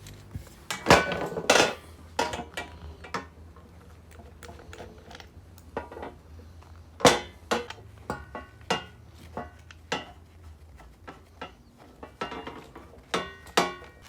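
Hard parts being handled and set down: irregular knocks and clinks, some of them metallic and ringing briefly, the loudest about a second in and again about seven seconds in.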